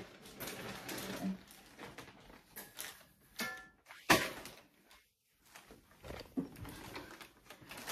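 Scattered handling noises of objects being moved in a small room: short rustles and knocks, with one sharper knock about four seconds in.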